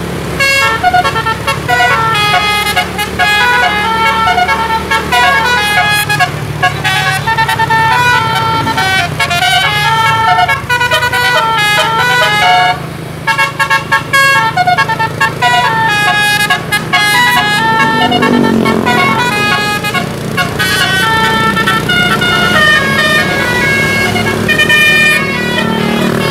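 A bus's DAV musical air horn, the Indonesian 'telolet' horn, plays a long, fast melodic run of short notes that step up and down in pitch. It breaks off briefly about halfway through and then carries on, with a low engine hum beneath.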